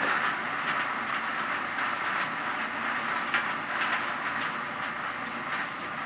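Homemade leaf shredder driven by a washing-machine motor, running and chopping castor bean leaves pushed into its hopper. A steady rushing noise steps up louder as the leaves go in, with irregular crackles.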